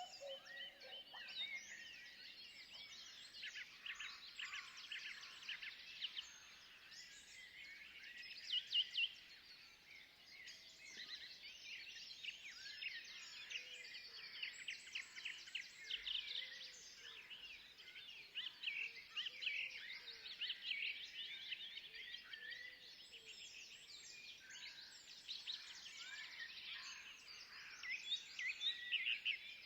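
A dense chorus of small forest birds chirping and twittering without a break. There is a louder burst of calls about nine seconds in and again near the end.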